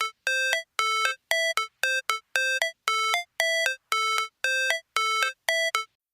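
Chiptune-style intro jingle: about fourteen short synthesized beeping notes in a simple melody, each ending in a quick upward pitch step.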